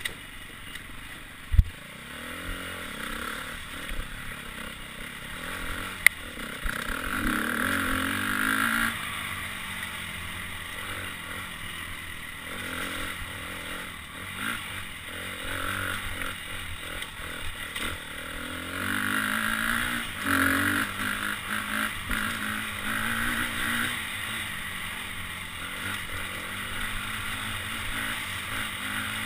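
Dirt bike engine, heard through a helmet camera, revving up and down as the throttle is opened and closed on a rough trail. There is a sharp knock near the start and another about six seconds in.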